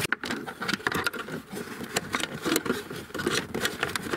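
Irregular rustling, scraping and small clicks of a USB cable being pushed through an opening in a car's plastic dashboard.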